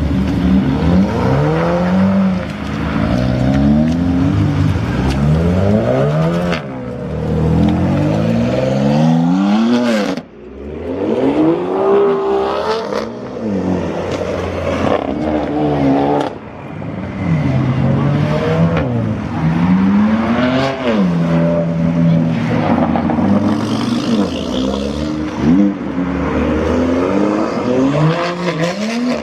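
Performance car engines revving hard through loud exhausts, over and over, the engine pitch sweeping up and falling back in quick succession, with a few abrupt breaks in the sound.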